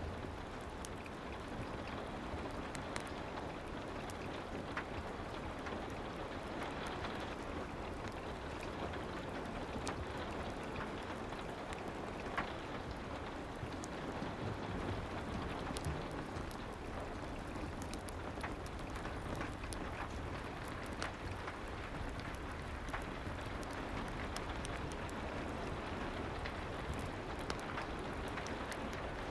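Soft, steady rain with small crackles from a fireplace scattered through it.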